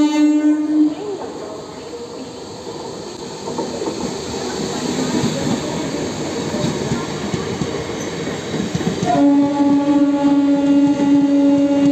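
Passenger train running past close by, with a steady rumble and clatter of wheels and coaches. A train horn sounds briefly at the very start and again in one long blast from about nine seconds in.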